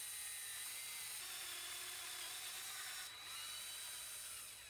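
Cordless drill boring a bolt hole down through a wooden 1x4 seat slat into the 2x3 brace beneath, the motor whine wavering in pitch as the bit cuts, with a brief let-up about three seconds in.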